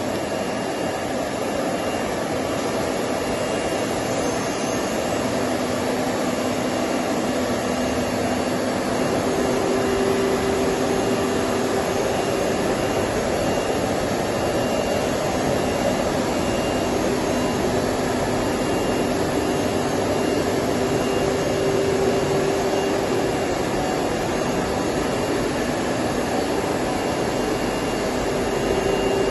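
CNC router cutting grooves in an aluminium composite panel: a steady, loud spindle-and-cutting noise. A faint steady tone joins about five seconds in, and a stronger one about nine seconds in.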